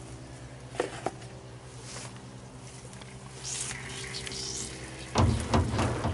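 The heavy steel lid of an offset smoker's cooking chamber being opened: a couple of clicks about a second in, a gliding metal creak a few seconds in, then a few heavy low thumps near the end, over a steady low hum.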